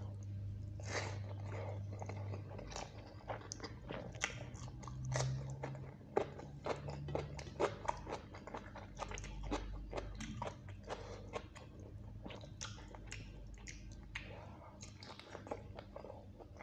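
Close-up chewing and wet mouth sounds of a person eating chicken curry and rice by hand, with many irregular sharp clicks and smacks.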